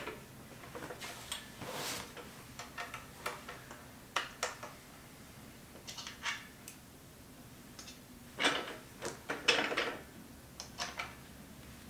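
Scattered small metallic clicks and ticks of a hand Allen key working the bolts of a Condor motorcycle stand's metal frame during assembly. There are two louder rustling noises about two-thirds of the way through.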